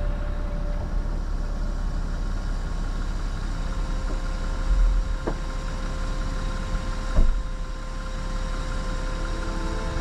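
4WD SUV driving on a rough unpaved mountain road: steady engine and tyre rumble, with two short knocks, about halfway through and again two seconds later.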